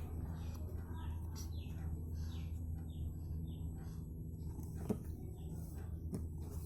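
Small bird chirping: short, falling high notes repeated about twice a second, stopping about four seconds in, over a steady low hum. A couple of faint knocks follow near the end.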